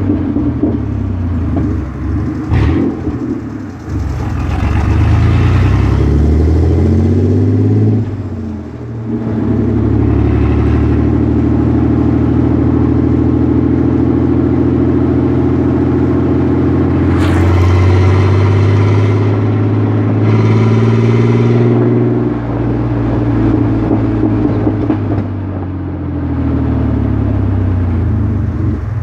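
Chevrolet Blazer's V6 engine pulling up through the gears. Its pitch climbs twice in the first eight seconds with a drop at each shift, then holds a steady drone for about twelve seconds before dropping and rising and falling near the end.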